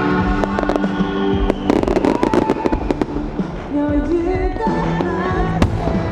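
Aerial firework shells bursting and crackling over loud accompanying music, with a dense cluster of bangs and crackles about two seconds in and a single sharp bang near the end.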